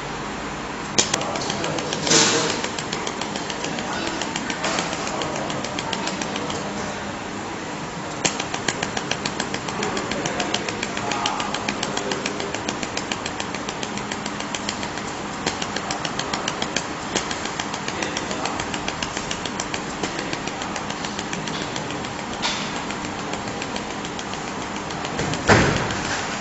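Pulsed laser welding machine firing, a fast, even train of sharp ticks over a steady machine hum. A louder knock comes about two seconds in and another near the end.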